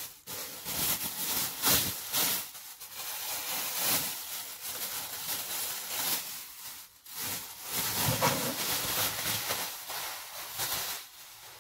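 Bags rustling and crinkling as they are handled, in uneven spells with short lulls.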